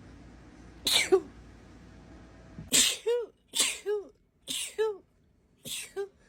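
A woman sneezing in a rapid fit: five sneezes, one about a second in and then four in quick succession about a second apart, each a sharp burst ending in a short pitched 'choo'.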